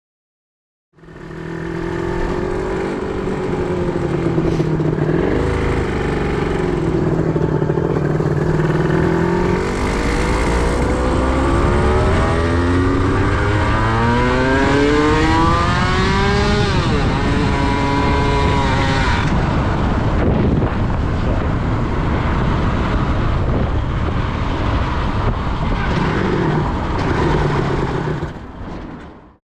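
Honda NSR250R (MC21) two-stroke V-twin motorcycle engine running, then revving up with a steadily climbing note. About two-thirds of the way through, the engine note cuts off abruptly and winds down as the pistons seize in the cylinders, caused by a carburettor assembly mistake. A rough rushing noise follows and fades out near the end.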